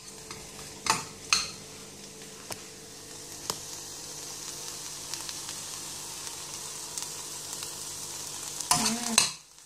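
Diced vegetables, including carrot, pepper and sweetcorn, sizzling steadily in oil in a stainless steel saucepan as a spoon stirs them. The spoon clicks against the pan a few times in the first few seconds.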